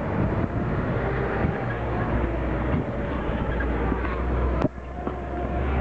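Safari truck driving fast over rough ground: engine running hard with a steady low drone, the body and load rattling. A single sharp knock comes about three-quarters of the way through.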